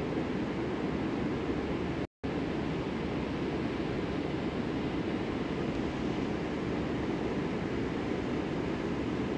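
Steady low rushing background noise, even throughout, cut by a brief total dropout about two seconds in.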